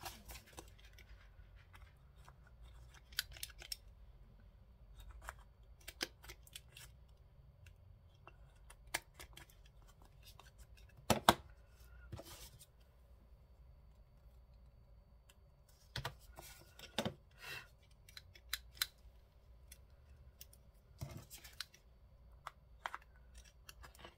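Scissors snipping paper to trim corners: short, sharp snips at irregular intervals with quiet gaps between them, clustered about halfway through and again around two-thirds of the way in.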